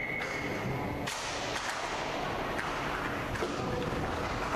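Inline hockey play in an echoing rink: scattered sharp clacks and thuds of sticks and puck over a steady rink noise.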